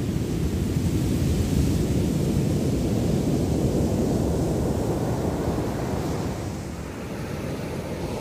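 Ocean surf breaking on a sandy beach: a rushing wash that builds over the first couple of seconds and slowly dies away, with wind rumbling on the microphone.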